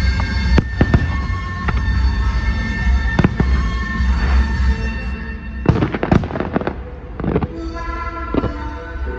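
Fireworks shells bursting in a series of sharp bangs, with a quick flurry of bursts about six seconds in, over loud music with heavy bass.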